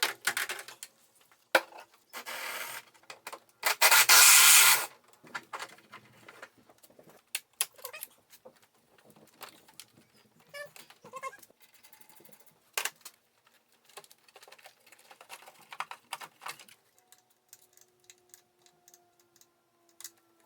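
Clicks, knocks and scraping of hands and tools working the windshield wiper arms and plastic cowl parts loose, with two longer rubbing scrapes about two and four seconds in, the second the loudest.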